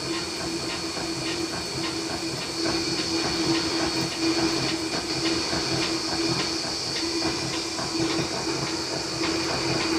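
CNC milling machine spindle running while a small end mill cuts a slot in a thin metal strip: a steady machine hum and high whine over the cutting noise, with light ticks a few times a second.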